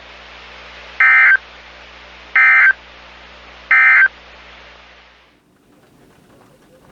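Emergency Alert System end-of-message code: three short bursts of buzzing digital data tones, about a second apart, that close a weather-radio alert. Under them runs a steady radio hiss with a low hum, which cuts off about five seconds in.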